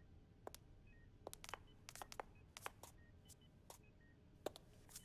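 Faint, irregular clicks of high-heeled footsteps on a hard floor, from an animated soundtrack, with a few faint short electronic beeps in the background.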